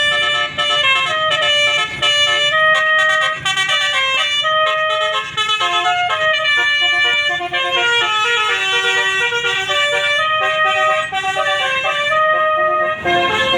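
Basuri musical air horn on a bus playing a 'telolet' tune: several horn trumpets sound together and step quickly from note to note in a continuous melody.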